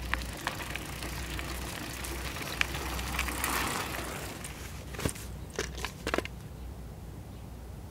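Outdoor location sound: a steady low rumble with scattered clicks and taps, and a few sharper clicks about five to six seconds in.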